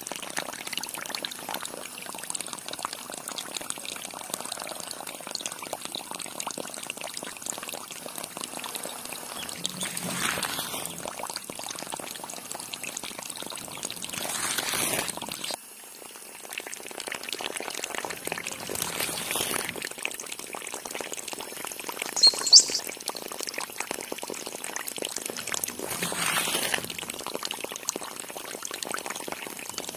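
A thin stream of water pouring from a small pipe into a shallow pool, making a steady splashing trickle. Two quick high chirps stand out about two-thirds of the way through.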